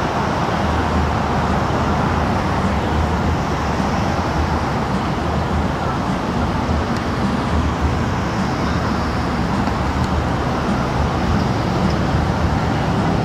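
Steady road traffic noise: vehicles driving past.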